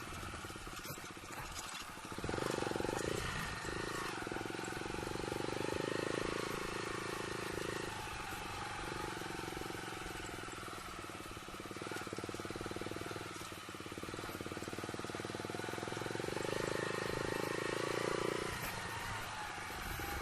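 Yamaha YBR 125's single-cylinder engine running under way on a rough off-road stretch, its note swelling and easing several times with the throttle, under steady wind noise on the microphone.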